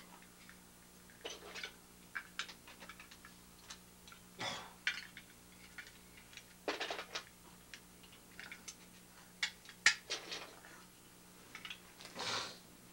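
Scattered clicks and light clatter of small plastic Lego pieces being handled, with a few short paper rustles, over a steady low hum. The sharpest click comes about ten seconds in.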